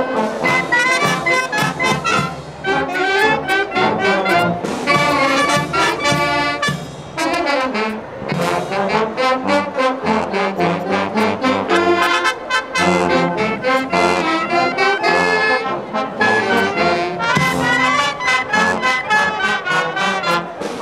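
Student wind band of saxophones, trumpets, trombones and sousaphones playing a piece together, with short breaks between phrases about two and seven seconds in.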